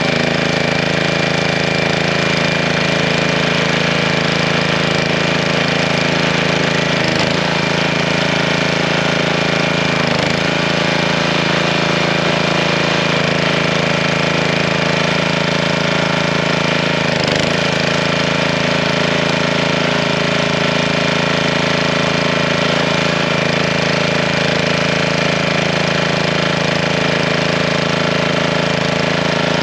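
Honda engine on a hydraulic log splitter running steadily, with a few brief dips in pitch.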